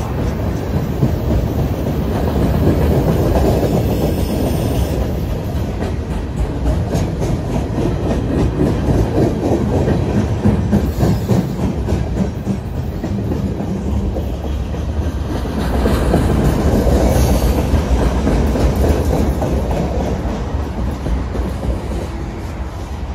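Freight train's loaded flatcars rolling past close by, steel wheels clattering in a steady clickety-clack over the rails with a continuous low rumble. The rumble swells twice as heavier cars go by.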